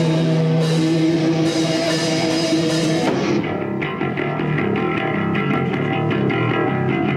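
Live rock band: an electric guitar holds a sustained chord, then about three seconds in the band plays on with drums keeping a steady beat.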